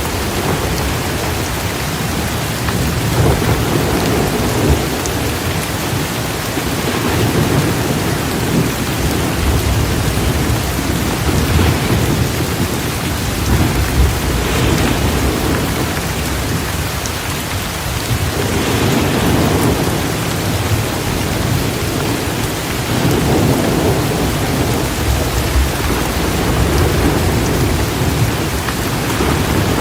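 Heavy rain pouring down steadily, with low rumbling swells that rise and fall every few seconds.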